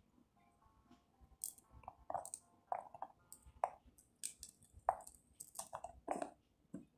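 Pomegranate being broken open and its seeds picked out by hand: a dozen or so short, irregular crackles and snaps of rind and seeds.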